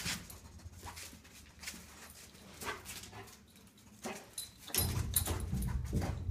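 A dog nosing and pawing under a fuel tank after a tennis ball: scattered scratching clicks, getting louder and fuller for the last second and a half.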